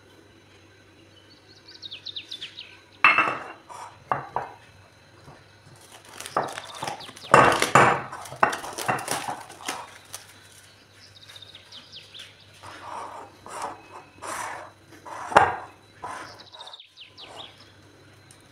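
Kitchen handling sounds: a sharp knock about three seconds in, a long run of plastic wrap crinkling as it is pulled off a glass bowl of risen dough from about six to ten seconds, and another sharp knock about fifteen seconds in. Short high bird chirps come and go in the background.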